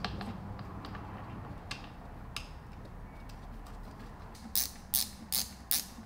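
A few scattered light metallic clicks, then from about four and a half seconds a ratchet wrench worked in quick short strokes, about three a second, tightening the fastener of the automatic transmission's shifter cable.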